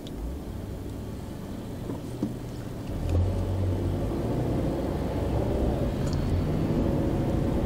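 Car engine and road noise heard from inside the cabin as the car pulls away from a standstill at traffic lights; the engine grows louder about three seconds in and stays up as it drives on.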